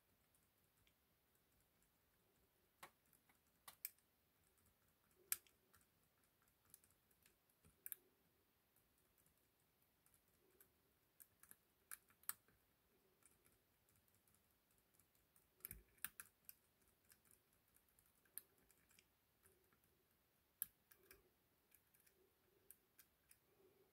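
Faint, irregular metallic clicks and ticks of a lock pick working the pins of an ASSA 6000 high-security lock cylinder under tension, with a few sharper clicks here and there.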